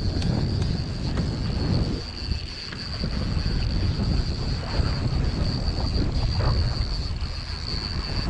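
Wind buffeting the microphone on a small sport-fishing boat at sea, a low rumble that gusts up and down and eases briefly about two seconds in, with a steady high-pitched whine running underneath.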